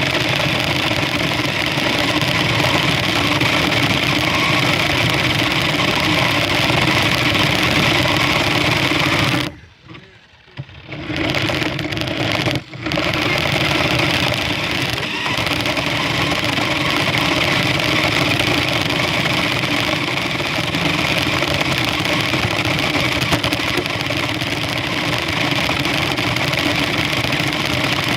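Toy remote-control car's small electric motor and gears running steadily, heard up close through a phone taped to the car. The motor cuts out for about a second and a half about ten seconds in, stops again briefly soon after, then runs on.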